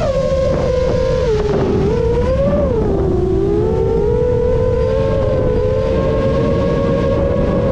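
Seven-inch FPV quadcopter's Emax Eco II 2806.5 motors spinning HQ 7x3.5x3 three-blade propellers, making a loud steady whine in flight. The pitch dips with throttle about a second and a half in, swells briefly, dips lower around three seconds, then holds nearly steady.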